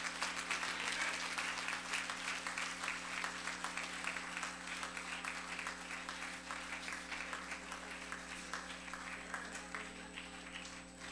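Congregation applauding at the close of a sermon. The clapping is dense at first and gradually thins and fades, with steady low tones underneath.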